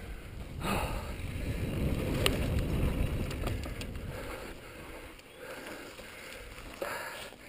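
Cannondale Jekyll mountain bike riding down dry, dusty dirt singletrack: tyre noise and bike rattle under a low wind rumble on the microphone. There is a sharp click about two seconds in, and the rumble eases about five seconds in.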